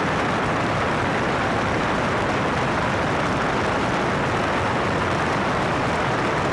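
Steady rushing airflow and engine noise from a small airplane in flight, with no change in pitch or level.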